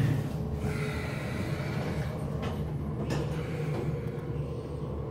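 Hotel elevator car in motion: a steady low hum, with two light knocks near the middle.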